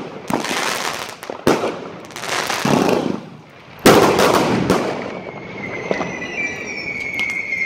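Fireworks going off: a string of sharp bangs with crackling between them, the loudest bang about four seconds in. A steady high whistle starts about six seconds in.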